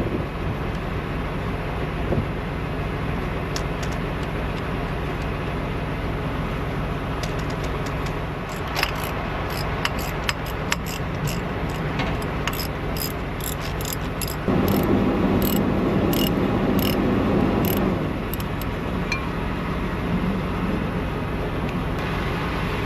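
A semi truck's diesel engine idling with a steady drone, with light metallic clicks and clinks of hand-tool work through the middle. A louder rush of noise rises over it for about three and a half seconds past the middle and then drops away.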